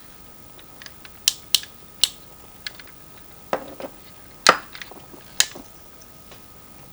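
Hard plastic clicks and snaps from a Transformers Masterpiece Dinobot figure being handled, parts clicking as they are moved: about nine sharp, irregular clicks, the loudest about halfway through.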